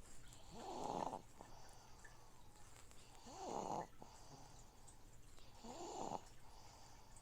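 Slow, regular snoring: three snores about two and a half seconds apart, over the steady hum of a fish tank filter.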